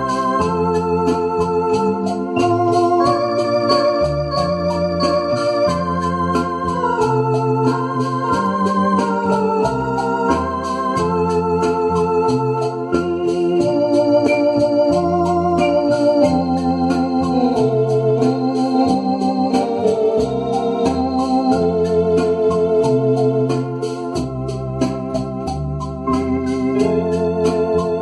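Two-manual electronic home organ playing a hymn tune: sustained chords under a melody with vibrato, over a bass line of separate notes changing about once a second.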